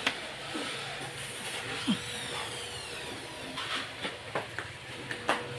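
Wooden shipping crate knocking and scraping as it is lifted and carried, with a cluster of sharp wooden knocks near the end.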